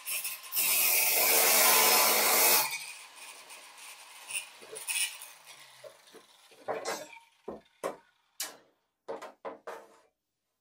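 Angle grinder cutting metal for about two seconds, starting about half a second in, then winding down. Several short knocks and clatters of handling follow.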